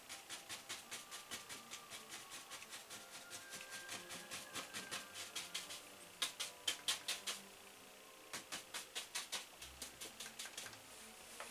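A wide flat bristle brush dabbing oil paint onto stretched canvas: quick, faint taps about five a second, with two short pauses, stopping shortly before the end.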